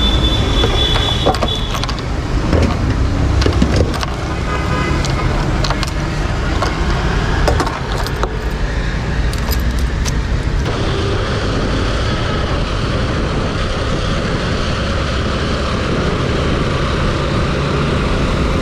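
Suzuki Gixxer 155 single-cylinder motorcycle running on the road amid traffic noise, with scattered clicks and knocks in the first half.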